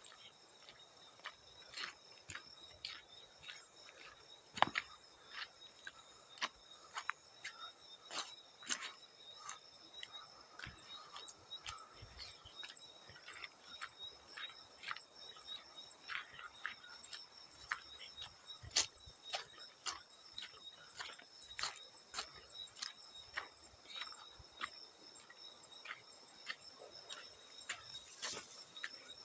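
Field crickets chirping in a steady high trill, with frequent irregular small water splashes throughout.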